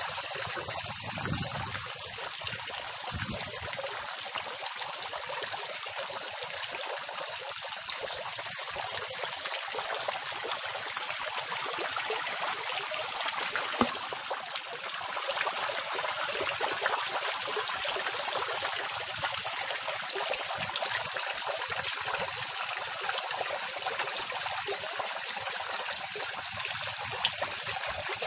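Garden fountain spray falling back into the pool: a steady splashing patter of water on water.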